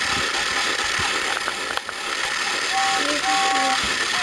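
Battery-operated toy James the Red Engine running on plastic track, its small motor and gears whirring steadily. A few short held tones sound over it in the second half.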